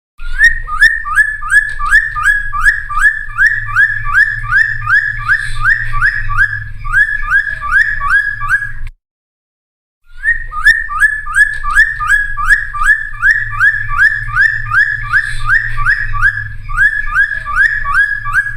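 Cucak timor (friarbird) singing in gacor form: two long bouts of fast repeated whistled notes, about two and a half a second, split by a one-second pause near the middle, with a low hum under the song.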